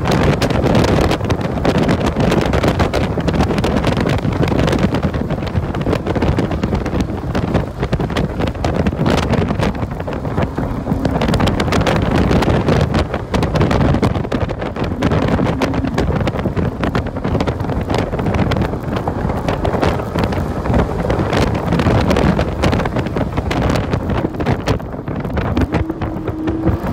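2014 Porsche 981 Cayman S's flat-six engine driven hard on a race track, heard from inside the cabin under heavy wind and road noise, at speeds between about 60 and 110 mph.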